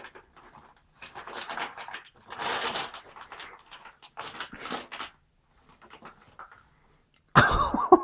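A toddler's breathy huffing, three or four short puffs of breath in the first half, fainter ones later, then a louder voice breaks in near the end.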